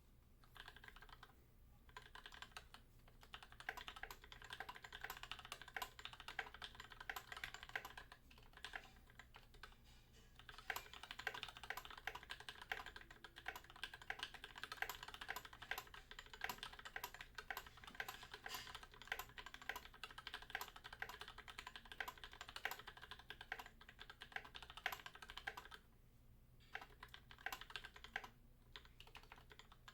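Typing on an Idobao ID80 mechanical keyboard with lubed linear 'Pillow' frankenswitches (Gateron Yellow housings with UHMWPE stems), NK_ x Tai-Hao keycaps and an EVA foam insert: keys clack in quick runs with short pauses, the longest about 26 seconds in.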